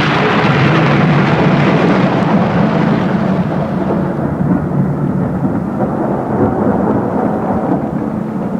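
A thunder crash rolls on as a long, deep rumble. The bright crackle at its head dies away over the first few seconds, and the rumble slowly fades near the end.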